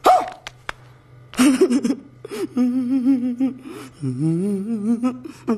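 Film soundtrack: a man's wordless, wavering vocal sounds in two stretches, the second gliding upward in pitch, over a steady low drone. A sharp noisy burst comes about a second and a half in.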